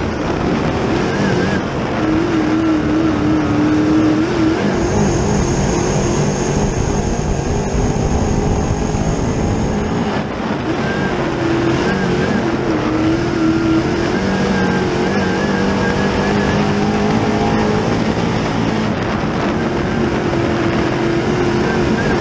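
Dirt late model's GM 604 crate small-block V8 racing at full song, heard from inside the cockpit, its pitch rising and falling as the driver gets on and off the throttle through the corners. A thin high whine sits over it from about five to ten seconds in.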